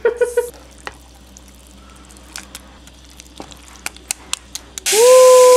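A wooden spoon stirring and tapping in a pot of boiled tapioca pearls, a few scattered light clicks. About five seconds in, a kitchen tap comes on loudly, water pouring over the pearls in a sieve, and this is the loudest sound.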